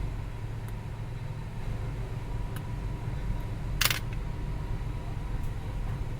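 Steady low background hum with a faint steady tone, a few faint small clicks, and one brief, sharp noise burst about four seconds in.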